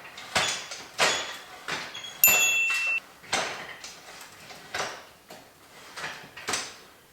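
Metal parts of a DeWalt rolling miter saw stand clacking and sliding as it is being assembled and adjusted: a string of sharp clicks and knocks, about one to two a second, with one louder metallic clank about two seconds in that rings briefly.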